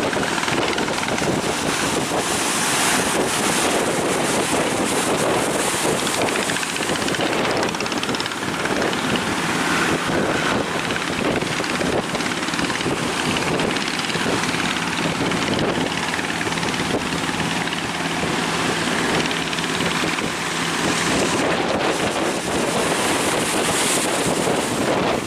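Boat motor running steadily under heavy wind noise on the microphone and the rush of surf.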